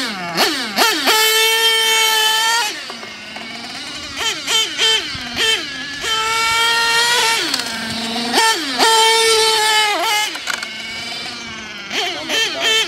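Radio-controlled car's motor running hard: a high, buzzing pitch that holds steady at speed, drops as the car slows and climbs again, several times over.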